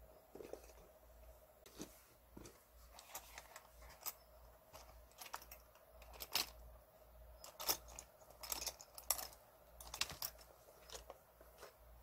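Hands rummaging in a leather pen pouch: small, irregular clicks and rattles of pens and metal clips knocking together, with light rustling. The clicks come closer together and louder in the second half. A faint steady hum runs underneath.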